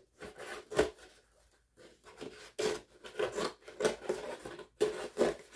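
Scissors cutting through a thin cardboard soda-can box. There is one snip, a short pause, then a quick run of snips at about three a second.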